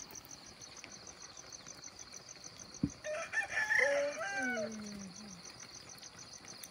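A rooster crowing once, a call of about two and a half seconds starting about three seconds in and falling in pitch at the end. It is preceded by a single sharp click, over a steady rapid chirping of insects.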